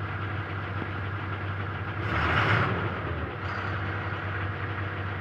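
Diesel engine of a 2022 Ashok Leyland truck idling steadily, running again after a wiring harness fault that had stopped it starting. A brief hiss rises over the idle about two seconds in.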